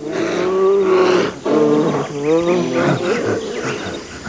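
Wordless vocal calls from the early-human (Homo erectus) characters, pitched and gliding up and down in short phrases with brief breaks between them.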